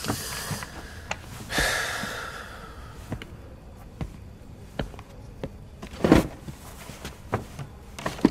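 A man's long breathy sigh, then footsteps on a hard floor and a few knocks as a wooden chair is moved and sat on. The loudest knock comes about six seconds in.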